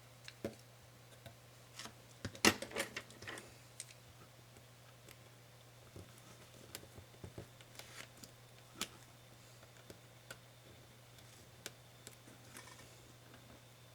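Scattered small clicks and taps of laptop parts and tools being handled during disassembly, with a cluster of louder clicks about two and a half seconds in, over a steady low hum.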